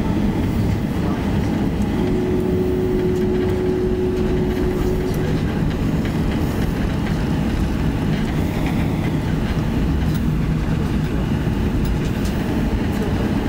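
Steady low rumble inside the cabin of a Boeing 737-800 taxiing, from its engines and rolling wheels. A thin steady hum joins in for about three seconds near the start.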